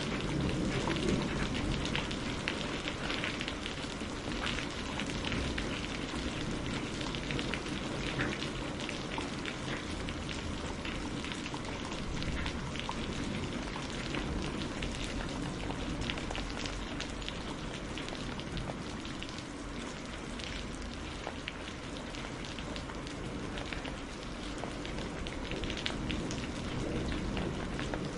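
Steady rain falling on surfaces, a dense patter of individual drops over a low rumble.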